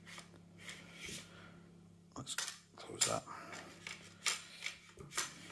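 Parts of an airsoft AK knocking and scraping as the receiver body is worked forward and in to slide into place: a series of small sharp clicks and knocks, most from about two seconds in.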